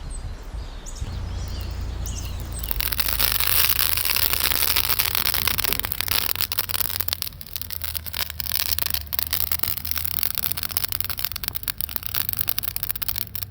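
Campfire of stacked wood burning: a loud hissing rush sets in about three seconds in, and from about halfway many sharp crackles and pops follow. Birds chirp faintly at the start.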